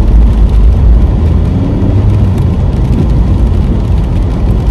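Car driving on a wet road, heard from inside the cabin: a steady low rumble of engine and tyres.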